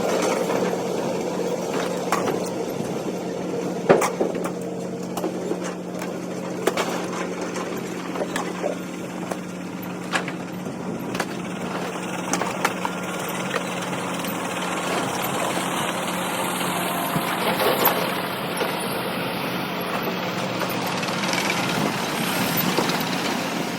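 Scrap-yard vehicle noise: a truck engine idling steadily, with scattered sharp metal knocks and clanks, the loudest about four seconds in.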